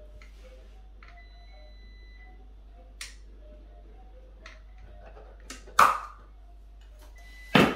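Hand caulking gun working adhesive along a batten: a few light clicks, then two sharp, loud clacks about two seconds apart near the end. Faint background music underneath.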